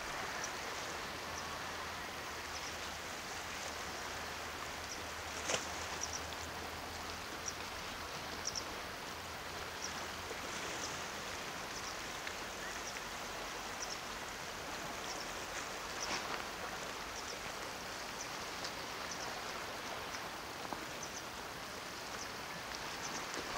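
Small sea waves washing and lapping against shore rocks: a steady wash with scattered small splashes and drips, and one sharper splash about five and a half seconds in.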